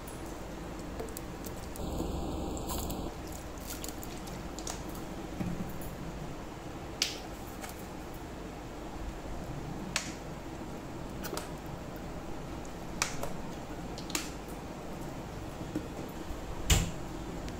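Sharp single clicks and taps a few seconds apart as spice containers are handled over a plastic mixing bowl, over a steady low room hum.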